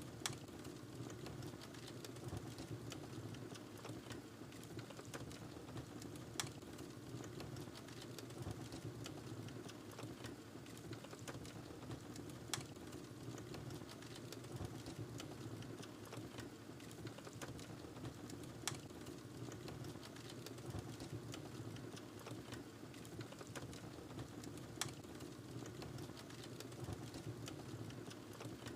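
Wood fire burning in a fireplace: a steady low rumble of flames with constant fine crackling and a sharper pop about every six seconds.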